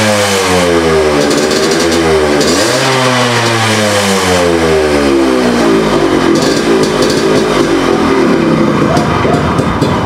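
Yamaha RX100's single-cylinder two-stroke engine running and being blipped: the revs rise near the start and again about two and a half seconds in, each time falling back and settling into a steady lower running speed. This is the engine's first run after the stripped exhaust stud was repaired to stop an exhaust leak.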